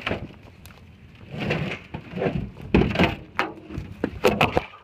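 A pry bar and axe clanking against a steel door and its carriage bolts: several sharp metal strikes, most in the second half, with scraping and rattling between.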